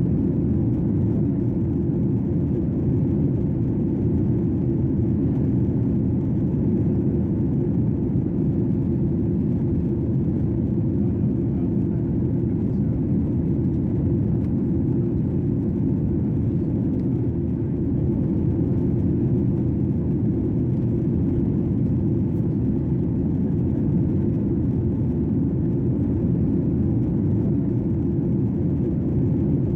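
Steady low rumble of an airliner cabin in flight: even engine and airflow noise, unchanging throughout.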